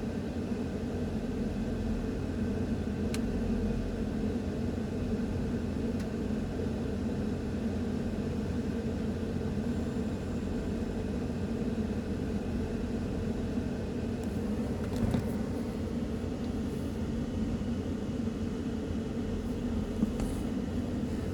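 Steady low rumble and hum, with a light click about three seconds in.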